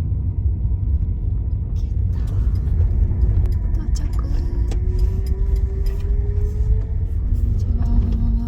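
Steady low road and engine rumble inside a moving car's cabin, with a faint tone rising slowly in pitch through the middle.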